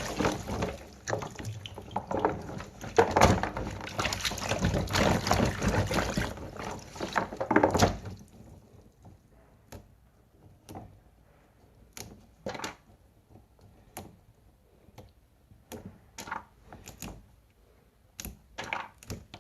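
Kitchen tap water running over green beans being washed in the sink, stopping suddenly about eight seconds in. After that, scattered light knocks and clicks.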